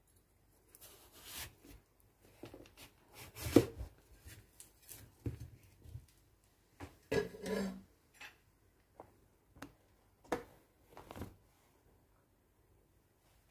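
Irregular scraping and knocking as a halved young papaya is cut and handled on a wooden cutting board. The sharpest knock comes about three and a half seconds in, and a longer scrape follows about seven seconds in.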